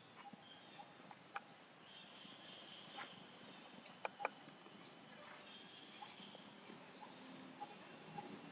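Outdoor natural ambience: a small animal repeats a short rising chirp about once a second over a steady high buzz. A few sharp clicks come through, the loudest two close together about four seconds in.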